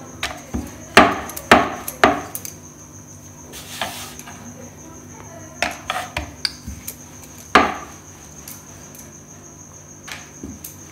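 Wooden rolling board and rolling pin knocking against a stone countertop while paratha dough is rolled and turned on it: three sharp knocks about half a second apart starting a second in, a few lighter ones near six seconds, and one more sharp knock at about seven and a half seconds.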